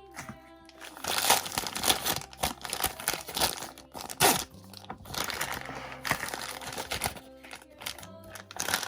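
Plastic blind bag from a toy capsule crinkling and rustling in the hands as it is torn open and unwrapped, in irregular crackles, with soft background music.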